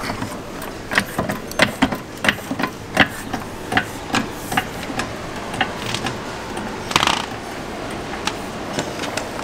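Low-profile trolley jack being worked under the car's sill, giving a string of irregular metallic clicks and knocks, with a louder rattle about seven seconds in.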